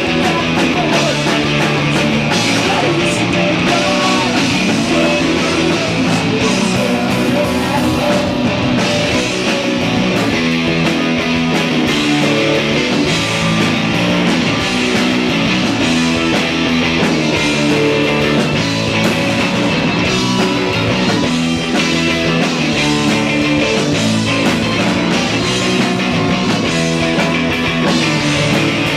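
Live rock band playing guitar-driven punk rock, loud and continuous with a steady beat.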